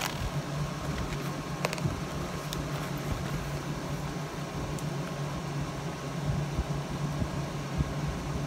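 Steady low mechanical hum, with a couple of faint clicks in the first few seconds.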